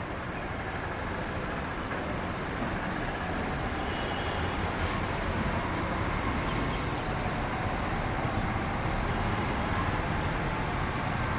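Steady low rumbling background noise, growing slowly a little louder, with no distinct events.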